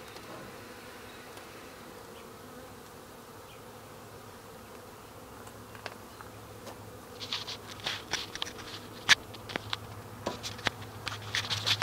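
Honey bees buzzing steadily around an opened nuc as its frames are moved into a hive. From about seven seconds in, a run of sharp clicks and knocks from handling, the loudest a little after nine seconds.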